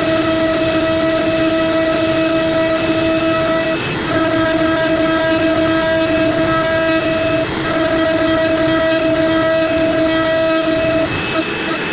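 CNC router spindle running at a steady high whine while its bit cuts into maple. The upper part of the whine drops out briefly three times, about 4, 7.5 and 11 seconds in.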